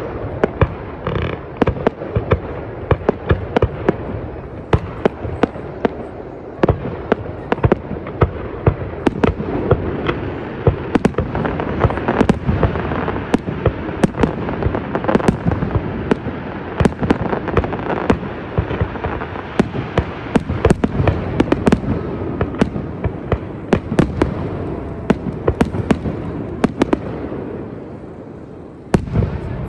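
Fireworks display: many rapid sharp bangs, often several a second, over a continuous rumble and crackle of bursting shells. It thins out near the end.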